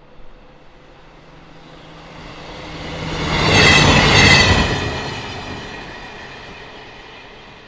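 A train passing by: a rumble that swells to its loudest about four seconds in and then fades away, with high squealing tones at its loudest.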